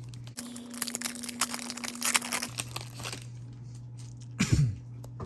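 Foil trading-card pack wrapper being torn open and crinkled, with a short sharp scrape about four and a half seconds in.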